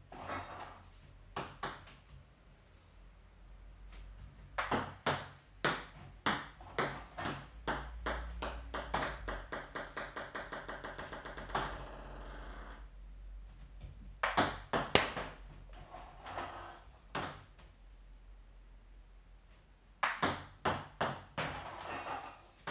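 Table tennis balls clicking as sidespin serves are struck with the bat and bounce across the table, in several bursts of sharp ticks. Near the middle one ball bounces faster and faster until it settles and goes still.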